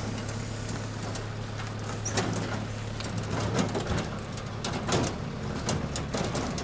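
Scattered knocks, scrapes and clothing rustle as a tall cyclone dust collector is pushed and tilted by hand, over the steady low hum of an idling compact tracked loader's engine.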